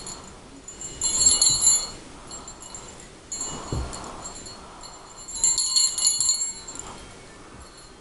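Small sleigh bells jingling as a little dog plays with them in its mouth: two loud shaken jingles, about a second in and again past the middle, with a softer jingle between them. A dull thump comes near the middle.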